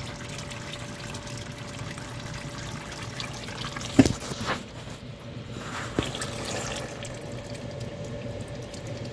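Red automatic transmission fluid draining from a Chrysler A-904 TorqueFlite transmission pan, trickling and splashing steadily into a plastic drain pan. A sharp knock about four seconds in, and a smaller click about two seconds later.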